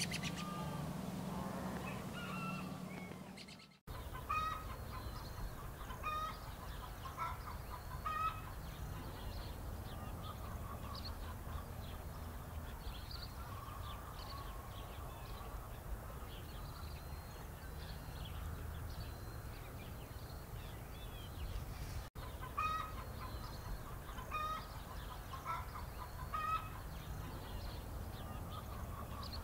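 Chickens clucking in short repeated calls over a steady low rumble. A steady low hum fills the first few seconds, and the sound breaks off abruptly twice: about four seconds in and again about three-quarters of the way through.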